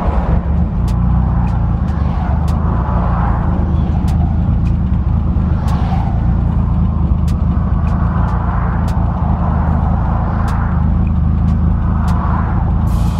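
Nissan 240SX being driven, its engine running with a steady low drone and the sound swelling every couple of seconds.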